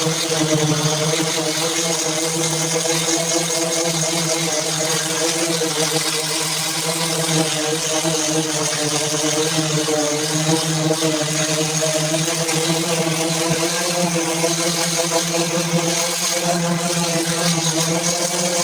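Power sander running steadily on a car body panel: an even motor whir with the hiss of abrasive on the surface.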